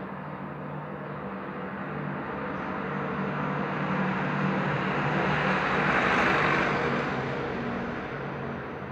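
A passing vehicle: rushing noise that swells to a peak about six seconds in, then fades, over a steady low hum.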